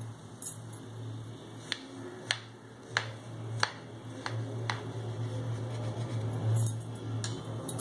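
Knife cutting through a soft banana cake on a ceramic plate, the blade clicking sharply against the plate about six times.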